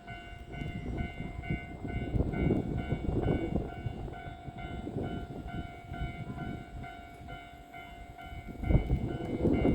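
Electric train moving through a station, its wheels clattering and the rumble swelling about a second in and again strongly near the end. Over it a repeating ringing tone pulses about twice a second.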